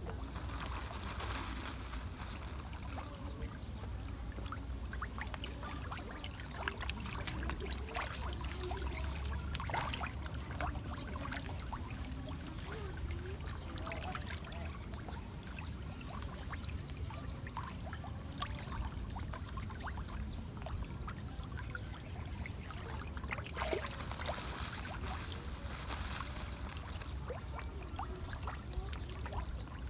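Water sloshing and splashing as a dense crowd of fish churns at the surface of a pond, gulping and slapping the water, with many short sharp splashes and pops over a steady low rumble.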